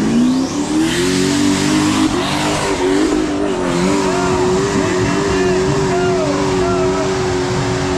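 High-horsepower hill-climb vehicle on big tires launching at full throttle: the engine revs climb sharply in the first second, then hold high and steady under a loud rushing noise.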